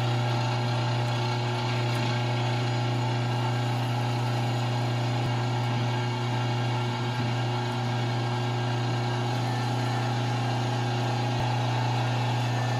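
Electric meat grinder motor running with a steady hum while it grinds a fried chicken sandwich, the ground mix coming out through the grinder plate.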